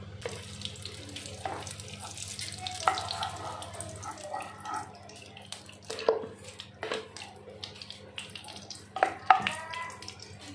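Solid ghee shaken from a jar into a hot nonstick pan, hissing and sizzling softly as it melts for the first few seconds. After that come a few sharp knocks of the jar or spoon against the pan, the loudest about six and nine seconds in.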